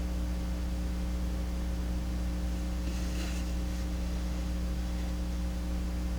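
Steady electrical mains hum, with a faint brief rustle or scrape about three seconds in.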